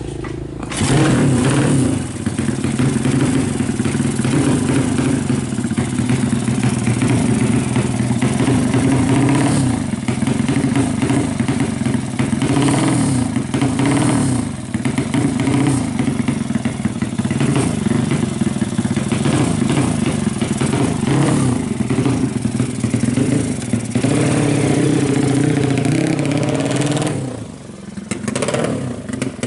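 A 200cc racing motorcycle engine running hard, its revs rising and falling. It comes in loud about a second in and drops off briefly near the end.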